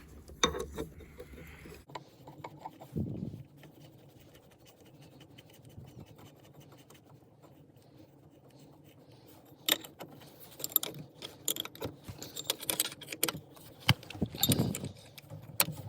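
Hand tools clinking and clicking against metal as a bolt is put in and tightened. There are a few knocks early on, a quiet stretch, then a busy run of irregular sharp clicks and clinks in the last six seconds.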